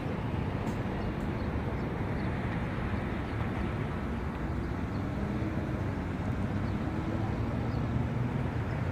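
Steady outdoor street noise: a low rumble of traffic, with a faint engine hum rising and fading in the middle.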